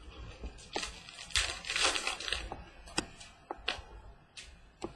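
Foil trading-card pack torn open and the cards handled. A scratchy rustle of the wrapper runs about a second in, and the cards click and tap now and then.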